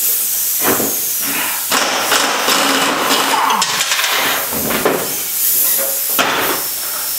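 Pneumatic impact wrench running in several bursts, hammering with a hiss of air as it loosens the nuts on a Cub Cadet riding mower's deck spindles and pulleys.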